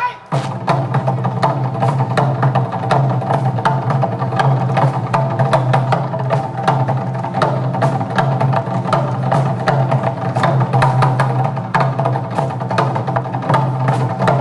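Korean drum ensemble playing barrel drums (buk) in a fast, dense run of stick strokes with sharp wood-block-like clicks, over a steady low tone. The sound dips briefly at the very start.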